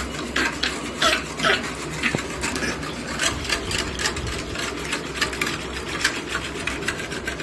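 Metal whisk spun between the palms, rattling and clicking rapidly against a stainless steel bowl of sweetened milk as it is beaten to dissolve the sugar.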